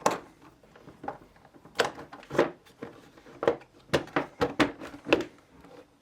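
Hard plastic housing parts of a Karcher K3 pressure washer knocking and clicking as they are handled and fitted together: a string of irregular short clicks and taps.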